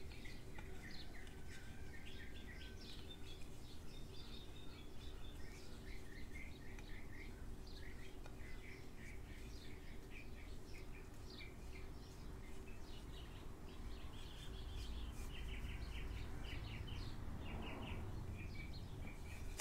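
Small birds chirping repeatedly, faint, over a steady low hum.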